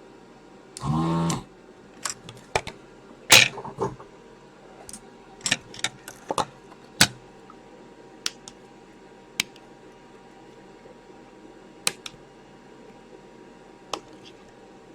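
A desoldering gun's vacuum pump (ZD-915 station) buzzes once, briefly, about a second in, sucking molten solder from an oscillator's pads on the circuit board. Scattered small clicks and taps of metal tools on the board follow.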